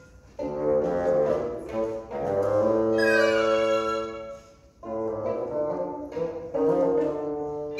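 Live chamber music from violin, bassoon and recorder playing together in sustained notes, in short phrases separated by brief pauses.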